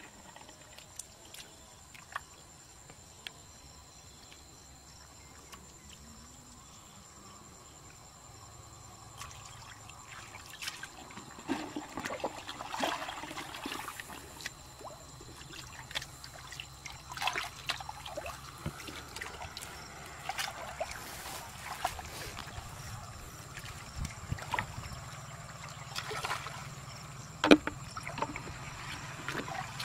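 Hands sloshing and splashing in shallow muddy water while groping through the mud for fish. Quiet at first, then frequent irregular splashes from about eight seconds in, with one sharp knock near the end.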